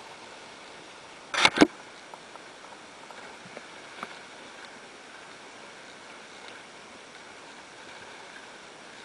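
Water rushing along the hull of a homemade sailing dinghy under way in choppy sea, a steady hiss of wake and wind. Two loud sharp slaps come close together about a second and a half in.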